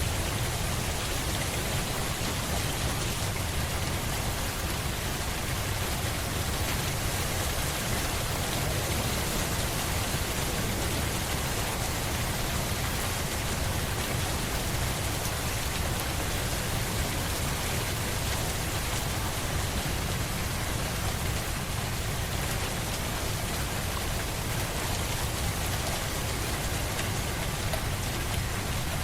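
Steady, heavy rain: a dense, even hiss of drops with a low rumble underneath, unchanging throughout.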